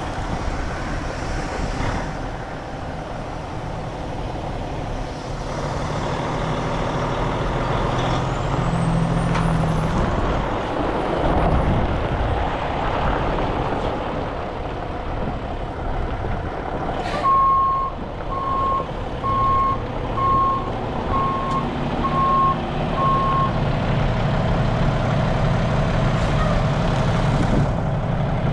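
Heavy diesel tow truck running, with a sharp burst of air hiss about two-thirds of the way in, then its reverse alarm beeping seven times, about once a second, as it backs up; the engine grows louder near the end.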